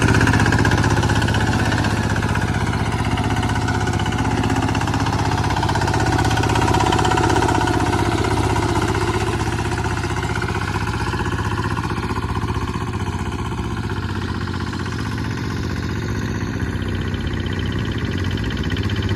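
Kubota single-cylinder diesel engine on a two-wheel walking tractor, running steadily under load while the tractor pulls a disc plough through dry soil. It gets a little louder about a third of the way in, then eases off.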